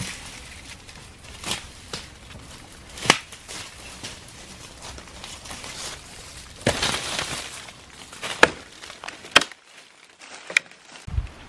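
Footsteps crunching and rustling through dry leaf litter, with several sharp cracks spread irregularly through it.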